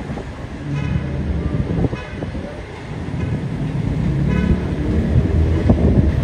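An R188 subway train runs into an elevated station with a low rumble and a motor hum. Three short, high horn toots sound about one, two and four and a half seconds in.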